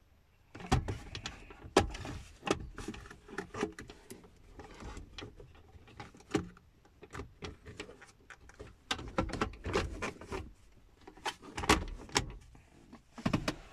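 Hard plastic centre-console trim panel of a 1997 Mitsubishi Lancer being worked back into the dashboard by hand: irregular sharp clicks and knocks with plastic scraping and rubbing in between, the loudest knocks about a second in, two seconds in and near the end.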